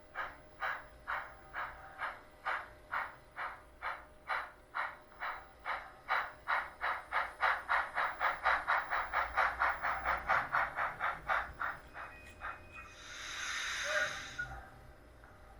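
The SoundTraxx Tsunami sound decoder of a Blackstone HOn3 K-27 model steam locomotive plays exhaust chuffs as the model runs. The chuffs quicken from about two to about four a second and grow louder, then slow and fade, and are followed near the end by about a second and a half of steam hiss.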